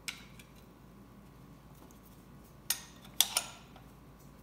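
Steel mount plates clicking together as tab-and-slot pieces are fitted by hand: a light click at the start, then three sharp metal clicks in quick succession past the middle as the parts click into place.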